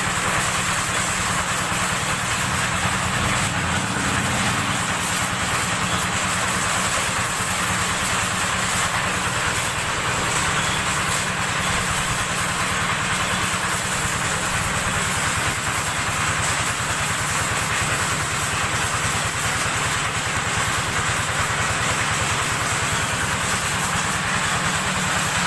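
Engine of a homemade helicopter running steadily at speed during a test run of its rotor and engine, a loud, unbroken mechanical drone with a hiss over it.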